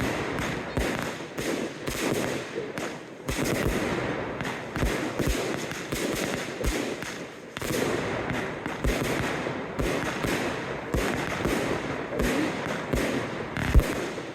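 Aerial fireworks display: shells bursting in a rapid, irregular series of bangs with crackling between them, the loudest single bang coming near the end.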